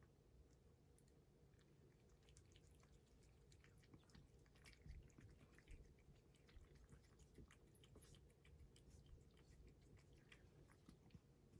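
A British Shorthair cat chewing its food, a quiet, irregular run of small clicks and smacks.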